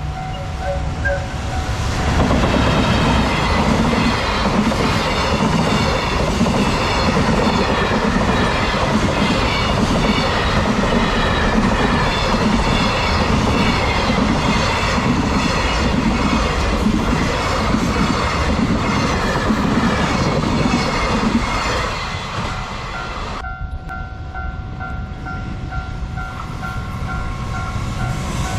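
Freight train hauled by a JR Freight EF210 electric locomotive passing over a level crossing, its wagons' wheels clattering over the rail joints in an even rhythm. A level-crossing bell rings in the opening seconds and again after a sudden cut near the end.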